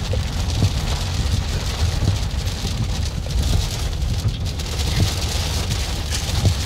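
Rain pelting a moving car's windshield and body, over a steady low rumble of road and engine, heard from inside the cabin.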